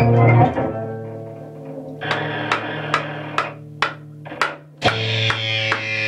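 Improvised cello and wood noise music. A steady low drone is held throughout, with irregular sharp wooden knocks, about two a second, from a third of the way in and high scraping glides near the end.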